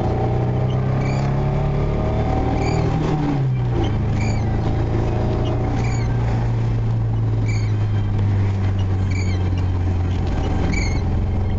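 Car engine and road noise heard from inside the moving car's cabin, the engine note shifting about three seconds in and then running steadily. A short high squeak repeats about once a second over it.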